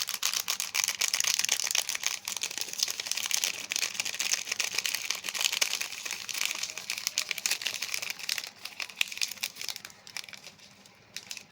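Hide & Seek Milano cookie packet wrapper crinkling and crackling as it is handled and opened. It eases off near the end.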